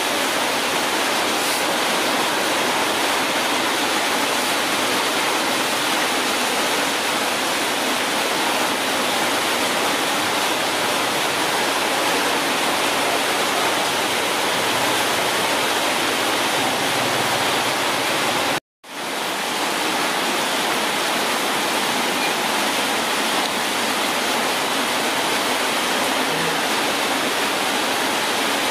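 A steady, even rushing hiss like running water or white noise, which cuts out abruptly for a moment about two-thirds of the way through.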